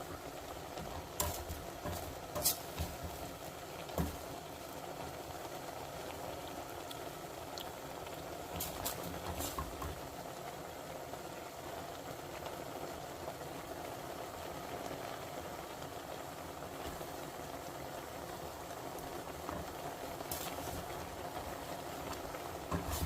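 Squid stir-fry sizzling steadily in a hot pan, with a few sharp clicks and knocks scattered through it, mostly in the first few seconds and again about halfway.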